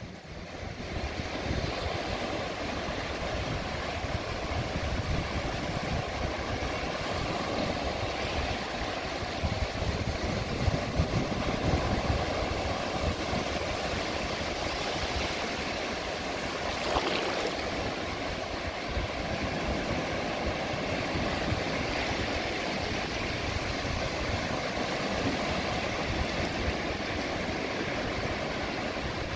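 Small surf waves breaking and washing up a sandy beach in a steady wash of noise, with wind rumbling on the microphone underneath.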